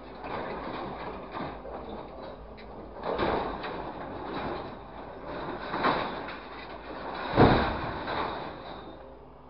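Scrap metal, long steel bars and sheet, clattering and scraping as a truck-mounted grapple crane drops and shifts a load in the truck bed. There are several bursts of clatter, the loudest a heavy crash about seven and a half seconds in.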